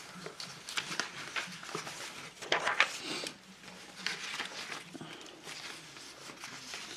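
Paper scraps rustling and shuffling as hands rummage through a box of cut paper pieces, in short irregular bursts, the loudest about two and a half seconds in.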